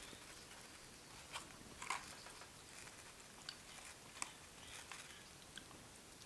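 Faint close-miked eating sounds: chewing and mouth noises, with scattered short clicks and crackles from picking at food in a foam takeout tray, over a steady hiss.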